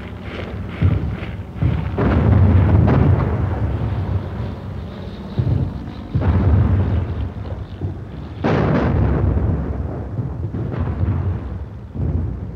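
Artillery fire and shell explosions: a series of about six heavy booms, each trailing off in a long low rumble.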